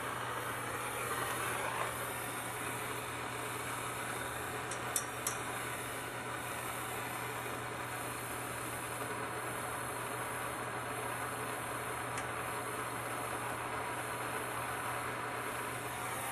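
Handheld gas torch flame hissing steadily as it heats a copper pipe joint for soldering, with a couple of light clicks about five seconds in.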